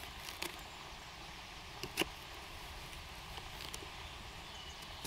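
A knife slicing a bell pepper on a small cutting board: a few sharp taps of the blade on the board, the loudest about two seconds in, over a faint steady outdoor hiss.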